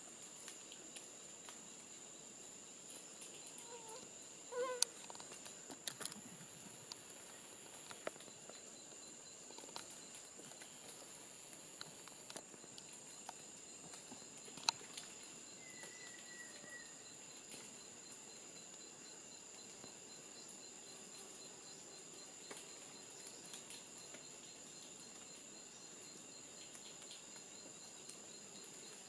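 Faint tropical forest insect chorus: a steady high-pitched insect drone with a cricket's even pulsed trill underneath. A few scattered clicks and taps and a brief call about four to five seconds in stand out over it.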